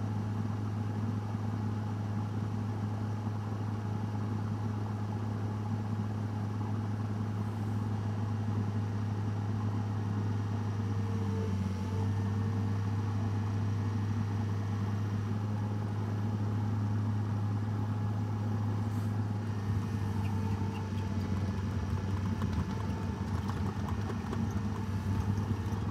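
Diesel engine of a Sany SY80C-9 excavator running steadily, a constant low hum with no change in speed.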